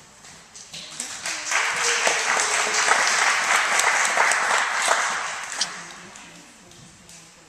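Audience clapping, swelling up about a second in, then dying away over the following few seconds.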